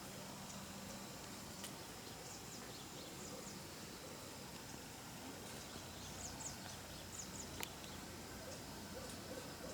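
Faint forest ambience: a steady background hiss with scattered short, high chirps and two sharp clicks, one about a second and a half in and one about three-quarters of the way through.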